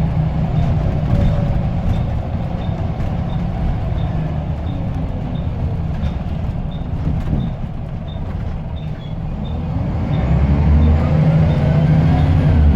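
Scania L94UB bus's diesel engine running, easing off mid-way and then pulling harder again. Its turbo whistles, the pitch rising as the engine builds power near the end.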